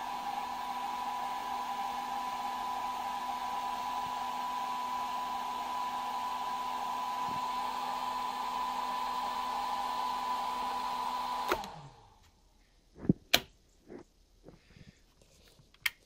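A 2 kW hair dryer running steadily at full power, a rush of air with a steady whine, as it dries itself out after being submerged in water. About three-quarters of the way through it cuts off and winds down, and a few sharp clicks follow.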